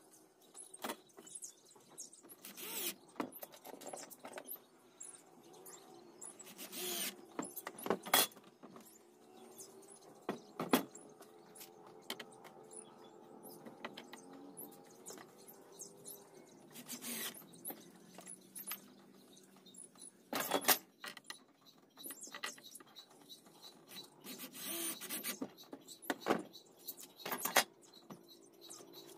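Irregular clicks, clacks and knocks of a sliding-door rail and metal roller brackets being handled against cabinet door panels on a wooden workbench, with a few louder knocks and short scraping rubs as the panels are moved.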